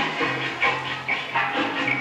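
Music playing, with a regular beat and a bass line under higher held notes.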